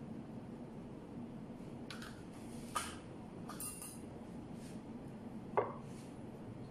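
Light kitchen handling noise: a spoon scraping paste from a plastic tub, then small clinks and two short knocks, about three and five and a half seconds in, as the tub and utensils are set down on the counter. A steady low hum runs underneath.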